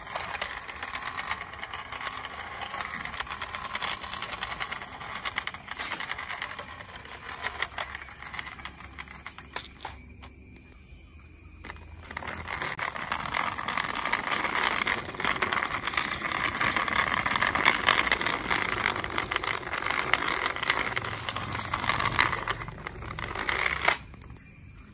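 Plastic wheels of hand-pushed toy trucks rolling over rough concrete, a continuous gritty rattle with a short lull about ten seconds in.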